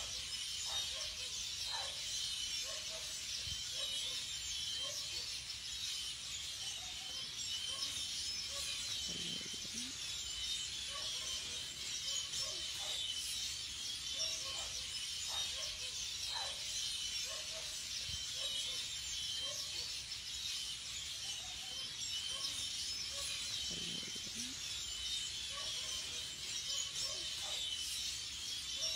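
Outdoor nature ambience: a steady high hiss with scattered short chirps throughout.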